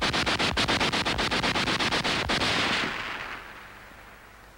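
German MPi submachine gun firing one long automatic burst, about nine or ten shots a second, that stops a little over two seconds in and leaves a fading echo. The whole magazine is emptied in one burst, which the instructor calls nonsense: every shot should be aimed.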